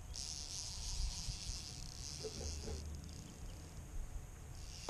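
Click-and-pawl fly reel ratchet buzzing in two spells as the spool turns, with single slower clicks where it slows. Wind rumbles on the camera microphone underneath.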